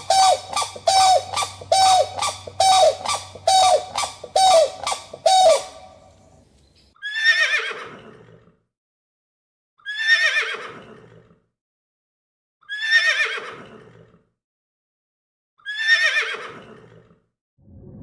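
Animal calls: a rapid run of short calls, about two or three a second, for the first five seconds or so, then four long calls, each sliding down in pitch, about three seconds apart.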